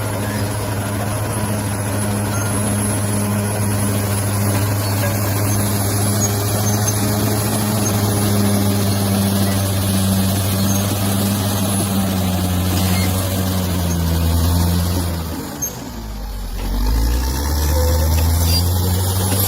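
Bulldozer's diesel engine running steadily under throttle. About fifteen seconds in, its note drops sharply, then climbs back up a second or two later.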